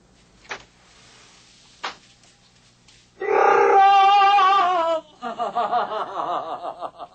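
Two short clicks, then a loud, drawn-out wordless vocal cry with wavering pitch, followed by rhythmic laughter.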